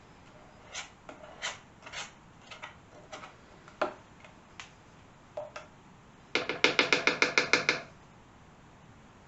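A kitchen utensil scraping and clicking against the wall of a container, working off leftover honey, in scattered strokes; about six seconds in comes a quick run of about a dozen ringing knocks against the container, lasting about a second and a half.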